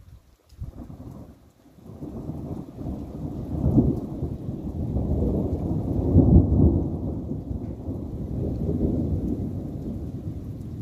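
Thunder rolling from a nearby storm: a low rumble that swells over a couple of seconds, peaks twice, about four and about six seconds in, then slowly dies away.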